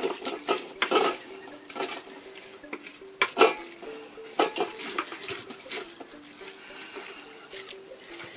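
Wooden stick stirring and mashing cooked leaves and paste in a clay pot: irregular knocks and scrapes of wood against the pot, the loudest knock about three and a half seconds in.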